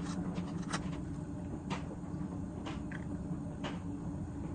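Quiet eating noises from a person biting and chewing a streusel bun held in a paper liner: scattered soft clicks, about one a second, over a steady low hum.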